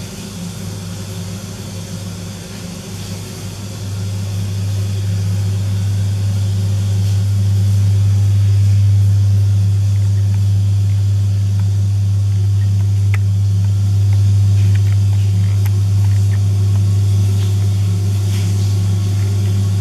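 Steady low electric hum of a small aquarium pump, growing louder about four seconds in, with a few faint clicks in the second half.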